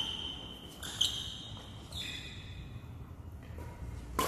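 Badminton rally: rackets striking the shuttlecock in sharp cracks about a second apart, with high squeaks from players' court shoes on the floor.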